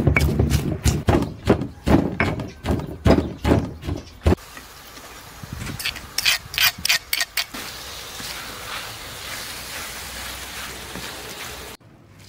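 Knife chopping onions on a cutting board in fast, regular strokes, about three or four a second, stopping about four seconds in. A few more cuts follow, then a steady hiss that cuts off abruptly near the end.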